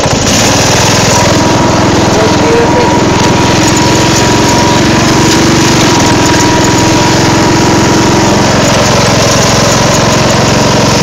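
Craftsman riding lawn mower's engine running steadily as the mower drives across rough grass.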